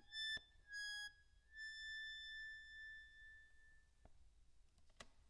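Faint, high instrumental melody played as a blackbird's song: two short notes, then one long held note that stops about four seconds in, followed by a faint click.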